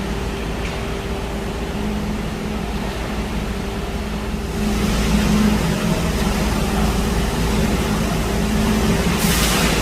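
Concrete pump truck's diesel engine running steadily under load. It gets louder about halfway through, and a short burst of hiss comes near the end.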